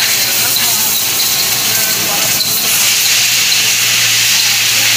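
Steady hiss over a low, even hum from running workshop machinery, with no distinct strikes or changes.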